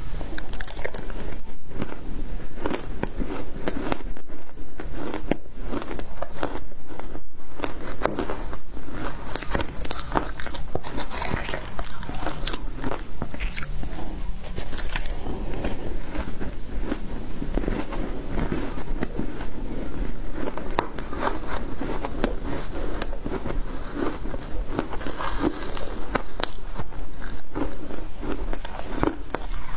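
Shaved ice topped with matcha powder being bitten and chewed: continuous crunching made of many small sharp clicks, bite after bite.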